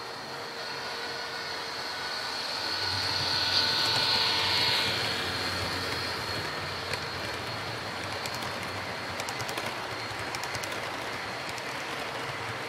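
Model train passing close by: the locomotive's motor whine swells to its loudest about four seconds in, then the double-stack intermodal cars roll past with light, rapid clicking of wheels over the rail joints.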